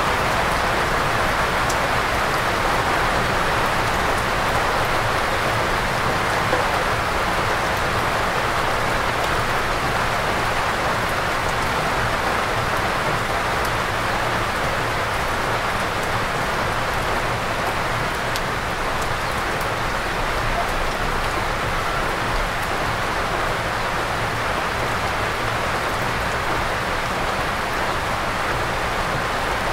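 Heavy rain falling steadily on a forest, an even, unbroken wash of rain noise.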